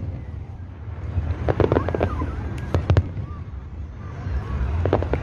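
Aerial fireworks shells bursting: clusters of sharp bangs and crackles about a second and a half in, around three seconds, and again near the end, over a low steady rumble.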